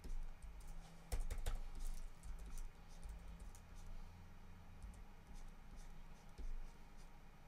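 Scattered clicks and taps of laptop keyboard keys, with a quick cluster of clicks about a second in and lighter ticks after.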